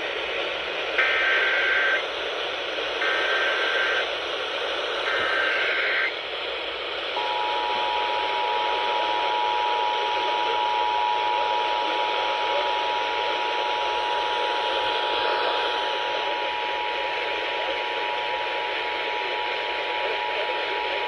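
Emergency Alert System test tones over FM radio with hiss: three one-second bursts of the SAME digital header screech, then from about seven seconds in the steady two-tone attention signal (853 and 960 Hz), held to the end.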